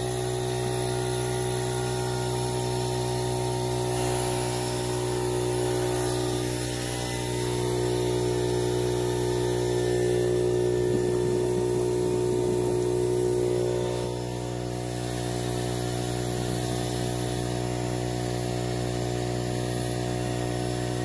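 Air compressor running steadily, with a hiss of air as it blows down the pool's skimmer line to drive the water back through to the pump, a step in winterizing the line.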